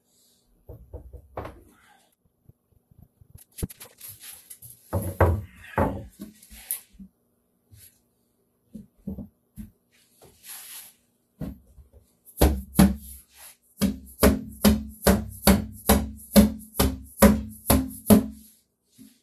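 Wood being knocked to seat a glued, doweled cabinet panel onto its dowels. Scattered knocks and handling thumps come first, then a run of about fourteen sharp knocks, two to three a second, in the last third.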